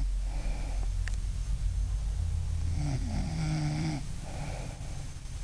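A woman snoring in her sleep: a steady low rumble with drawn-out snores that bend in pitch, the clearest one about three seconds in.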